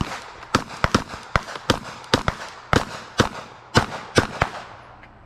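Glock pistol gunfire: about a dozen sharp shots at uneven intervals over roughly four and a half seconds during a timed string of fire, then stopping.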